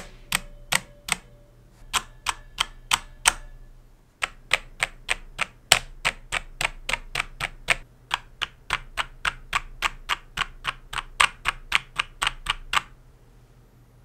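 Mechanical keyboard keys with Cherry MX Red linear switches pressed one at a time, about three to four sharp clicks a second. The stock switches come first; after a short break, about four seconds in, come the same switches lubed with Krytox, played to compare spring ping.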